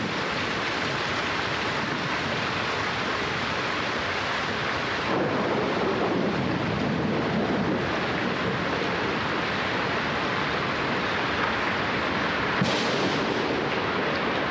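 Steady rain, a dense even hiss, with a short sharp sound near the end.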